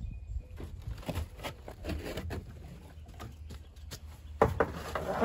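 Scattered light knocks and scuffs of handling on a firewood-filled IBC tote's steel cage, with louder handling and scraping near the end as the white plastic tote lid is passed up.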